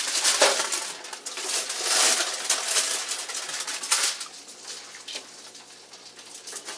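Slotted spatula scraping roasted potatoes off aluminium foil on a baking sheet, with the foil crinkling and light clinks of the food going onto a plate. It is busy for the first four seconds, then quieter.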